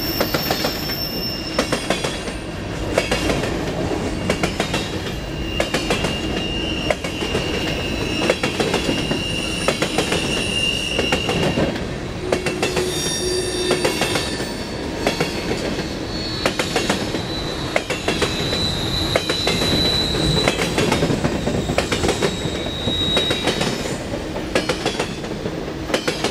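Canadian Pacific grain train of covered hopper cars rolling steadily past, its steel wheels clicking over the rail joints. Thin, high wheel squeals are held for several seconds at a time, once a few seconds in and again about two-thirds of the way through.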